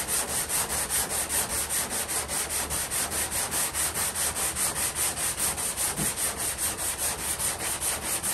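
Sandpaper on a hand sanding block rasping back and forth over body filler on a steel truck hood, in quick, even strokes about five a second. The filler is being levelled with light pressure to smooth out the small step between bare metal and the old paint.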